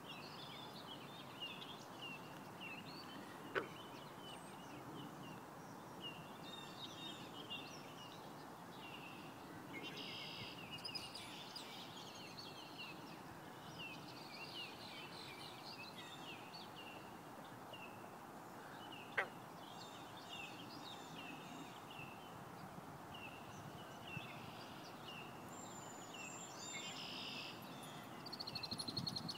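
Birds calling and singing around a woodland pond: scattered short, high chirps and phrases over a faint steady background hiss. Two sharp clicks stand out, about four seconds in and again near the middle.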